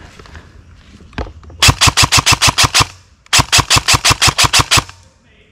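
Airsoft rifle firing two bursts of rapid, evenly spaced shots, about seven or eight a second, with a short pause between them.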